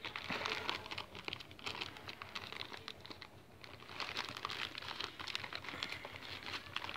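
Plastic Amazon courier mailer crinkling and rustling as hands pull it apart and tear it open, in irregular crackly bursts that thin out about three seconds in and pick up again.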